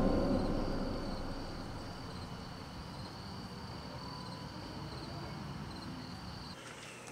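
Crickets chirping in a steady, high, slightly pulsing trill that stops shortly before the end. A low rumble from the film's score fades out over the first couple of seconds.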